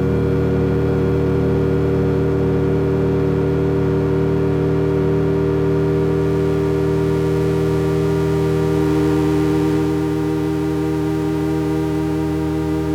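Soma Labs Lyra-8 analog drone synthesizer holding a dense, sustained drone of many steady tones over a heavy low end. A faint hiss rises in the highs about halfway through, and near the end the upper tones shift and one starts to wobble.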